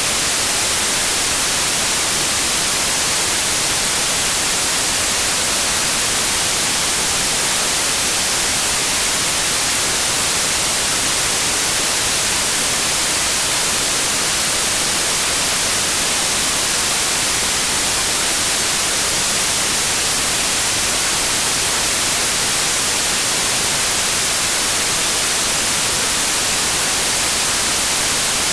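Synthetic white noise: a steady, even hiss, brightest in the high frequencies, unchanging throughout.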